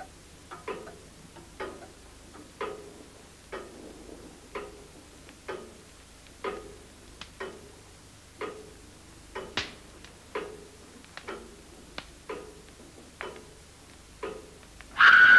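A clock ticking steadily, about one tick a second, each tick ringing briefly. Loud string music comes in suddenly right at the end.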